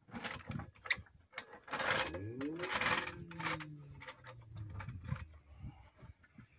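Pittsburgh hydraulic floor jack being pumped by its long handle, clicking with each stroke as it lifts the car. Through the middle comes a louder rush with a tone that slides down in pitch.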